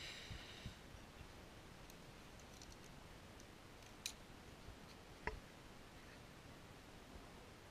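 Near silence, broken by two short sharp clicks about four and five seconds in.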